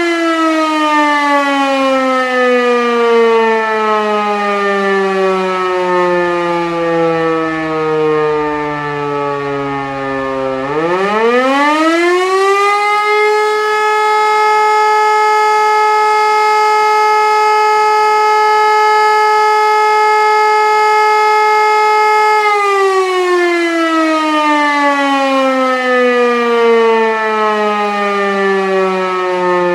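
E57 motor-driven rotary siren sounding the fire-alarm signal in a test. Its tone is sliding down as the rotor coasts. About eleven seconds in it spins back up within a couple of seconds to a steady tone, holds it for about ten seconds, then slides slowly down again as the motor cuts out.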